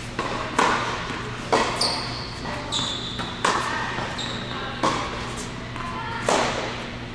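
Tennis ball struck by racquets and bouncing on an indoor hard court, a sharp hit every second or so, each one echoing in the large hall.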